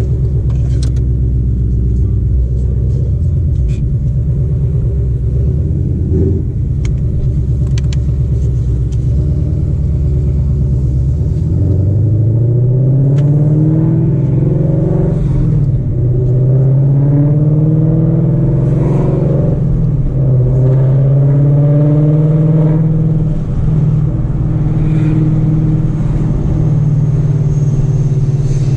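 Ford Mustang GT's 5.0 V8 engine running at low revs as the car rolls. After about twelve seconds it accelerates, its pitch rising, with two short dips where gears are shifted, then it holds a steady cruise.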